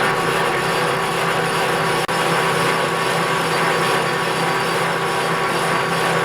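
Metal lathe running steadily, a steady machine whine with several fixed tones over a broad hiss.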